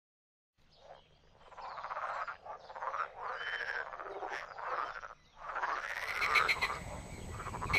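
Frogs croaking in a chorus, the calls overlapping and repeating, beginning about half a second in. Near the end a faster run of short, higher-pitched calls joins in.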